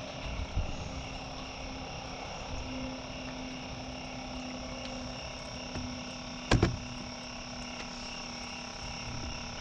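Night insect chorus: steady high-pitched trilling, one strand pulsing gently, over a low steady hum, with a single sharp knock about six and a half seconds in.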